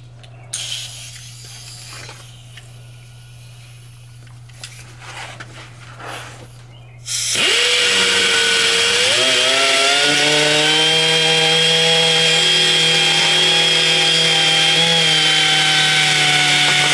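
A high-speed rotary tool with a carbide burr bit spins up about halfway through, its whine rising in pitch and then holding steady as it grinds out cracked, delaminated fiberglass from a jet ski hull. Before it starts there are only light handling clicks over a low steady hum.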